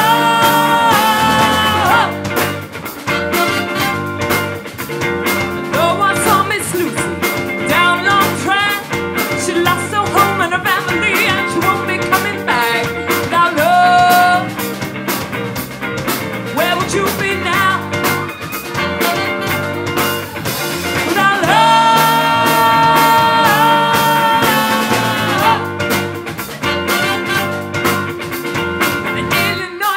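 Live rock band playing: drum kit, electric guitar and saxophone behind a female lead singer. Long held notes ring out near the start and again about two-thirds of the way through.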